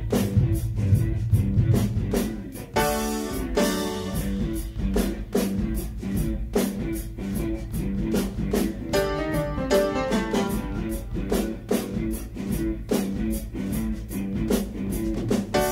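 Song mix played back from a mixing console: piano chords over a drum kit with steady, even cymbal strokes. A heavy low rumble in the first two seconds thins out as it is cut with the equalizer.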